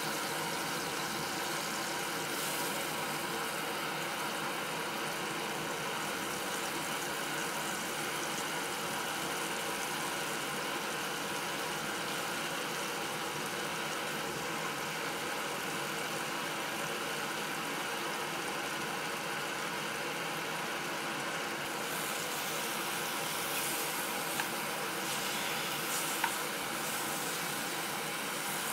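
Backpacking stove burner running steadily under a frying pan, with whole shaggy mane mushrooms frying in a little grease. Two light clicks near the end.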